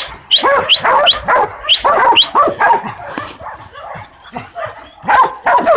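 Young dogs barking rapidly and repeatedly as they bay a penned hog. The barking lulls about halfway through and picks up again near the end.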